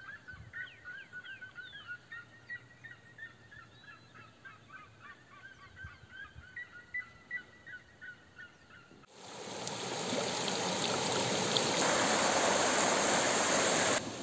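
Birds calling outdoors at dawn, a busy run of short, quick, repeated chirping notes, for about nine seconds. Then it cuts to a louder, steady rushing hiss that lasts to the end.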